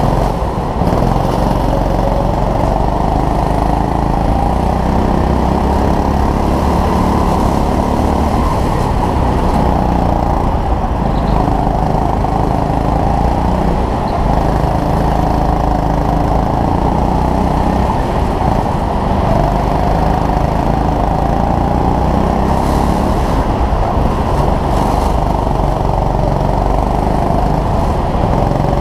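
Go-kart engine running hard, heard from on board the kart, its pitch rising and falling as the kart accelerates out of corners and slows into them.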